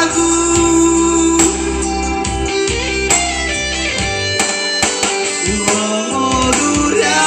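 Music: an instrumental passage led by guitar, with plucked and strummed notes over a steady bass, between sung lines.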